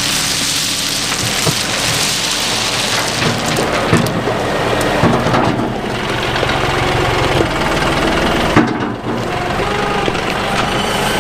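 John Deere 5055E diesel tractor running while loose rock rattles, crunches and clatters as it is spread into mud holes, with sharp knocks of stones striking now and then.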